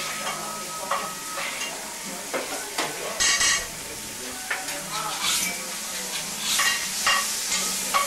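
A crêpe cooking on a round crêpe griddle: a steady sizzle, with a spatula now and then scraping and clattering against the hot plate, most loudly about three seconds in.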